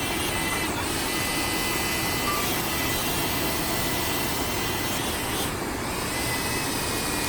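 Waterfall roaring: a steady rush of falling water with no let-up.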